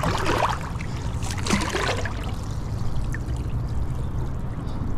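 Water splashing and sloshing as hands work a cast net in a shallow, muddy river, with bursts near the start and about a second and a half in. A steady low hum runs underneath.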